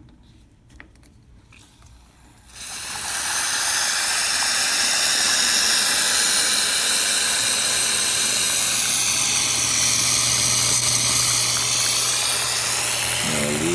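Alex Duetto espresso machine's wand opened about two seconds in, venting with a loud, steady hiss under pressure. A low steady hum, typical of the machine's pump, joins about halfway through.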